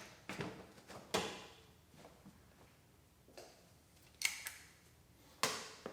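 Scattered clunks and metallic clinks, about five in all, some with a short ring, of hand tools and gear being handled and set down while being put away.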